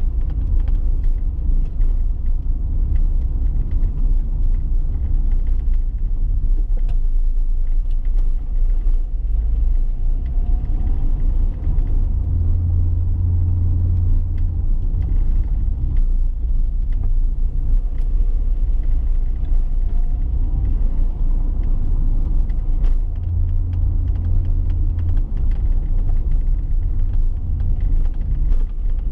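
Steady low rumble of engine and road noise inside a moving vehicle's cabin, swelling deeper twice for a couple of seconds.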